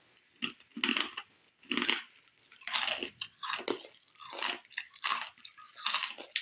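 Crunchy plantain chips being bitten and chewed, about eight crisp, irregular crunches.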